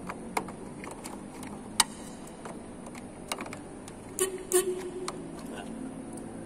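A few separate sharp plastic clicks and taps as a connector is handled and pressed in a car's engine-bay fuse and relay box, the sharpest about two seconds in, over a steady low background.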